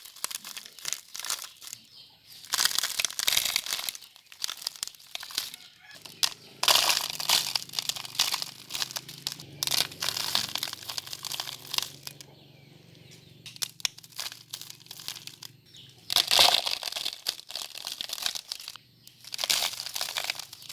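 Bursts of crunching and rustling from sand and small stones being scooped, poured and pushed around by toy trucks and excavators, in several spells of gritty, crackly noise.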